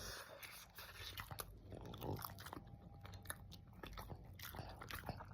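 A person chewing a steamed red bean bun close to the microphone: quiet chewing with many small scattered mouth clicks.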